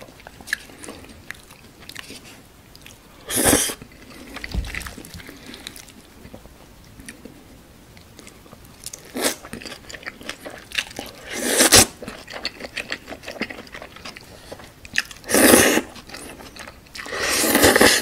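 Close-miked eating of thick, chewy jjolmyeon noodles: wet chewing with a few crunches, broken by several loud noodle slurps a few seconds apart, the longest near the end.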